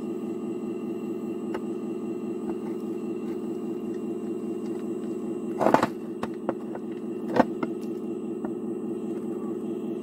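Hydraulic pump of a radio-controlled Cat 374F scale excavator running with a steady hum. A little past halfway its bucket tips gravel and stones into the bed of a radio-controlled Volvo A40G dump truck: a short rattling pour, then a few stones clattering, with one sharp knock about a second and a half later.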